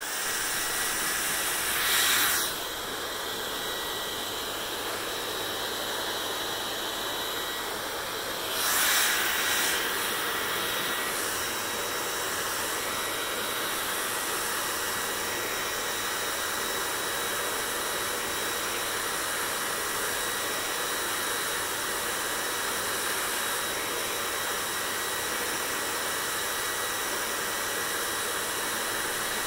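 Hair dryer running steadily: a hissing rush of air with a faint high whine. Twice, about two and about nine seconds in, the rush swells briefly.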